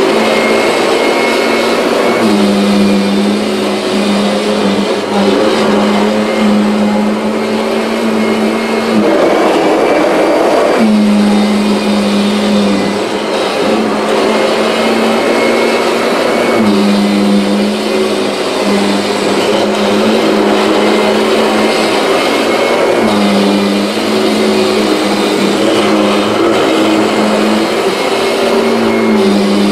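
Kirby G6 upright vacuum cleaner running on a rug: a loud, steady motor hum whose tone breaks and shifts for a moment several times as the load on the nozzle changes.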